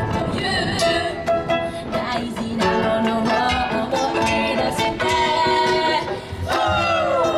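Ukulele band performing live: several ukuleles strumming chords while a woman sings a melody into a microphone, her voice sliding down in a long falling note near the end.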